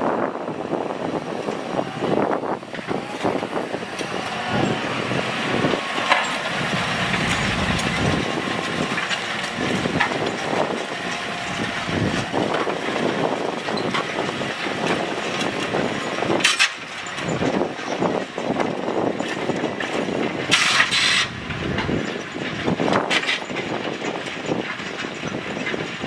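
Case Puma tractor's diesel engine working steadily under load while pulling a reversible plough through soil, with scattered short knocks and a couple of brief hissing bursts about two-thirds of the way through.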